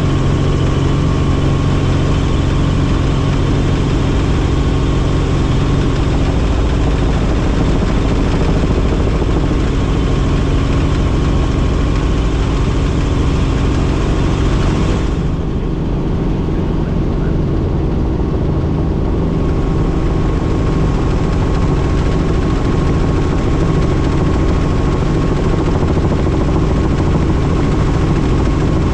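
Helicopter engine and rotor noise inside the cabin in flight: a steady drone with steady low tones. The higher hiss drops away for a few seconds about halfway through, then returns.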